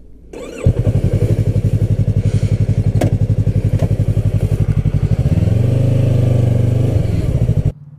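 Yamaha YZF-R3's 321 cc parallel-twin engine through an Akrapovic carbon slip-on exhaust, running with an even, pulsing beat. About five seconds in it rises in pitch as it is revved up, and it stops abruptly near the end.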